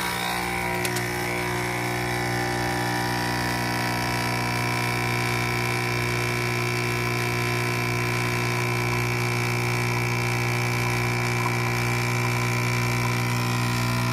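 Nespresso capsule coffee machine's pump running steadily while it brews a shot, an even, loud electric buzz with a constant hum.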